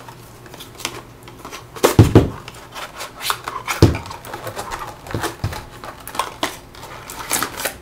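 Cardboard packaging being handled: a string of knocks, scrapes and rustles as the power adapter is taken out of its small box, with the two loudest knocks about two and four seconds in.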